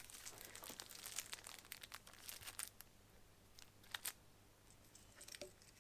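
Faint crinkling of packaging being handled while parts are unboxed, with a few small sharp clicks about three and a half and four seconds in.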